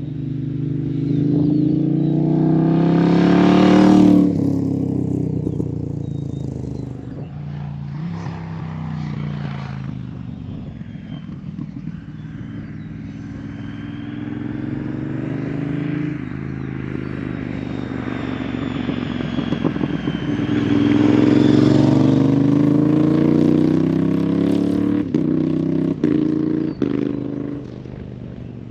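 Moto Guzzi V100 transverse V-twin with an aftermarket exhaust, revving up hard over the first few seconds and then dropping off. The revs climb again about twenty seconds in, then fall away with a few sharp pops near the end.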